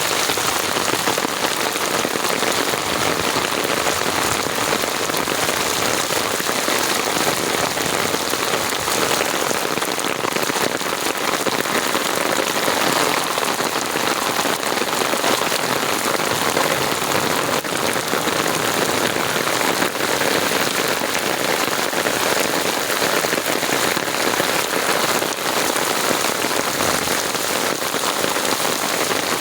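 Steady rain falling and pattering on surfaces, an even hiss of drops without a break.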